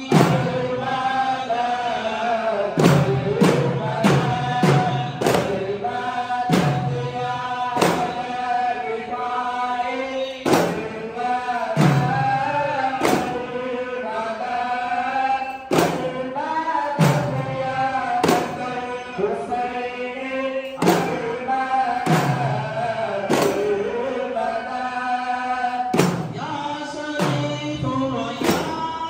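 A group of men chanting devotional Sufi dhikr, led by a singer on a microphone, with hand-held daf frame drums struck in a recurring pattern under the chant.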